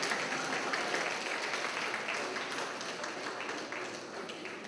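Audience applauding, a dense steady clapping that slowly fades toward the end.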